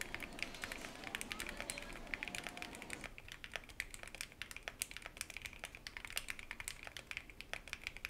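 Typing on a Keychron Q8 Alice-layout mechanical keyboard: a quick, steady run of keystroke clicks.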